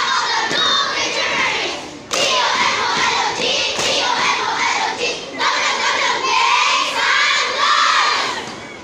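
Crowd of schoolchildren shouting and cheering in loud overlapping waves, dipping briefly about two seconds in and again near the end.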